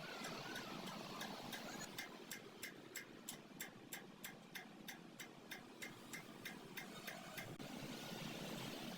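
Regular mechanical ticking, about three crisp ticks a second, lasting about five seconds over a steady background hum.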